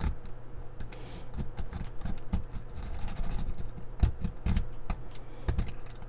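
Metal lock-pick rake clicking and scraping against the pins inside a 2-inch laminated steel padlock's keyway as it is raked, in irregular light clicks with a few louder knocks in the second half.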